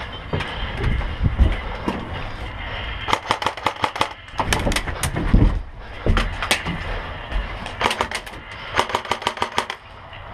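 Airsoft guns firing in several rapid bursts of sharp cracks, with a pause between volleys and a low rumble underneath.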